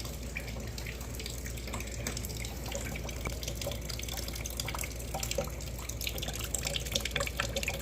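Fluid draining from the van's engine into a bucket: a steady trickle with many small irregular drips.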